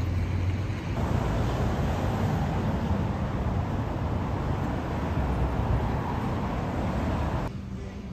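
Street traffic noise: a steady rumble of passing cars. About seven and a half seconds in it drops away to a much quieter indoor room tone.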